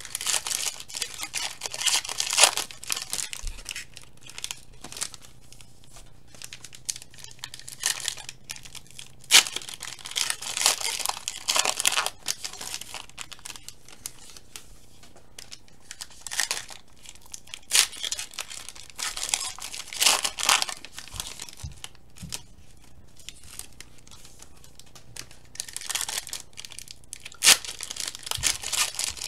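Foil trading-card pack wrappers being torn open and crinkled, in irregular bursts of rustling, with cards being handled between them.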